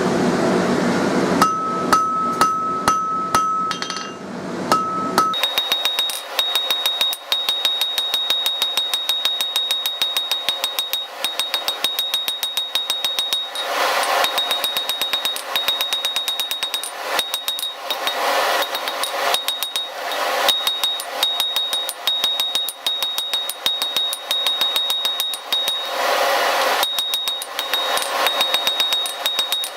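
Hand hammer striking hot mild steel on an anvil while drawing out a bar, each blow ringing. A few ringing blows come first over a steady rushing noise, then a long, steady run of quick blows.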